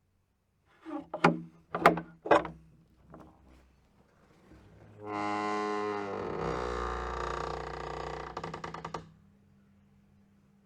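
Old wooden door: a handful of sharp latch and handle clicks and knocks about a second in. Then a long, pitched hinge creak from about five seconds in, which breaks into a rapid stuttering creak before stopping around nine seconds.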